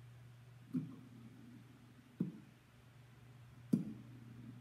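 Quiet pause on a handheld vocal microphone: a steady low hum with three short, soft knocks about a second and a half apart, the last the loudest, from the microphone and its stand being handled.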